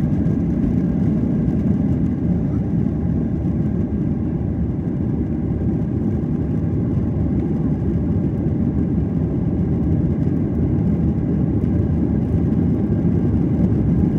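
Steady low rumble of a Boeing 737-800 under takeoff thrust, heard from inside the cabin.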